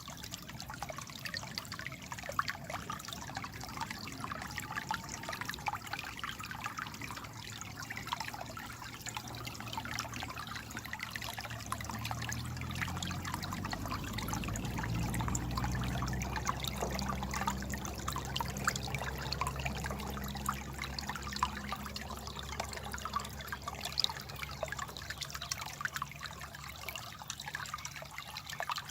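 Stream water trickling and babbling, a steady rush dotted with many small splashes. A low hum swells in partway through and fades again toward the end.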